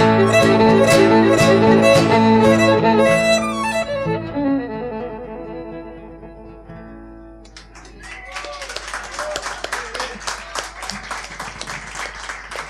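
Violin and acoustic guitar play the closing bars of a song, the last notes ringing out and fading away. About seven seconds in, an audience starts clapping.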